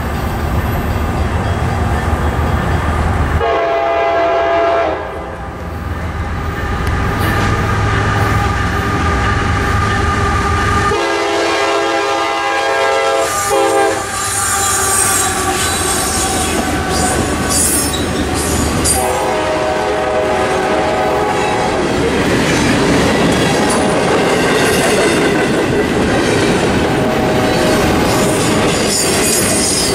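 CSX intermodal freight train passing a level crossing: the GE locomotive's horn sounds three times, the second and third blasts longer, then the double-stack cars roll by with clickety-clack and some wheel squeal. Under it the crossing bells ring, one of them a worn US&S Teardrop mechanical bell that clicks more than it rings.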